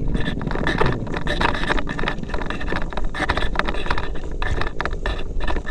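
Motorcycle running on a rough track of loose stones, with a constant clatter of sharp knocks and rattles as it jolts over the rocks above the low rumble of the engine.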